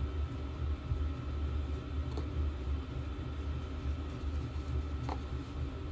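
Garage heater running with a steady low rumble, with two faint light clicks about two and five seconds in from handling the new paper oil filter element.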